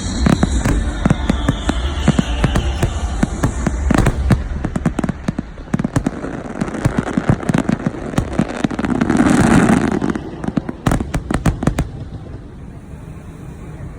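Fireworks going off: a dense run of rapid bangs and crackling, with a falling whistle in the first few seconds and a loud rushing burst about nine seconds in, then thinning out near the end.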